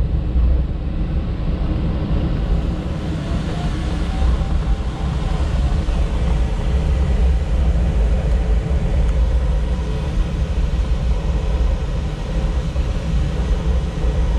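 Steady rush of airflow inside the cockpit of a two-seat glider in flight, with a deep rumble.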